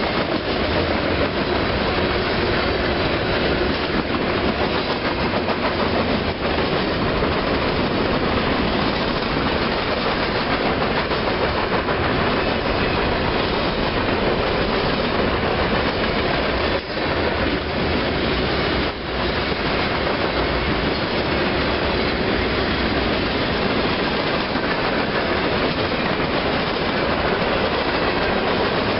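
Norfolk Southern freight train's cars rolling past close by: steady, loud noise of steel wheels on the rails, with two brief dips about two-thirds of the way through.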